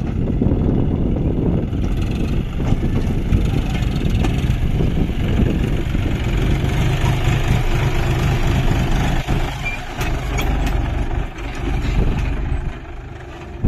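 John Deere 5050D tractor's three-cylinder diesel engine running steadily under load as it tows a loaded trailer past, its tyres rolling over rough ground. The sound drops off near the end as the tractor moves away.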